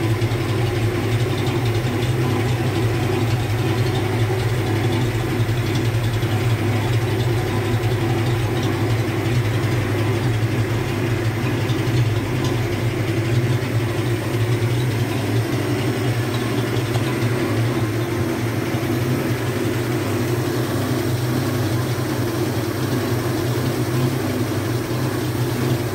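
GMC CCKW truck's 270 cu in straight-six petrol engine idling steadily, running on 98-octane unleaded (SP98).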